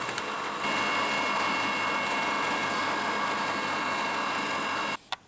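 Spindle moulder running, its cutter shaping a spruce handle blank that is guided by a template: a steady machine noise with a high whine. It rises a little under a second in and cuts off suddenly near the end.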